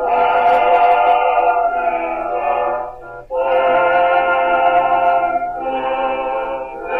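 Background music of slow, long held notes, in phrases that break off briefly about three seconds in and dip again near the end.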